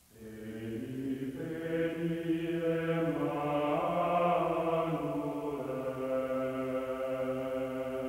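Chanting voices fade in over the first second, holding long sustained notes that shift slowly in pitch.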